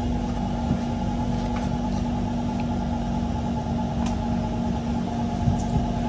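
Steady hum and low rumble inside the car of a Kawasaki C151 MRT train, with a few faint clicks and no change in pitch.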